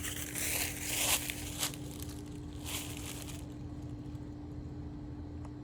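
Footsteps crunching through dry undergrowth, several steps that stop about three and a half seconds in, leaving a faint steady hum.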